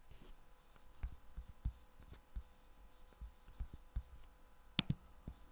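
Quiet room tone with faint, scattered soft knocks and one sharp click near the end.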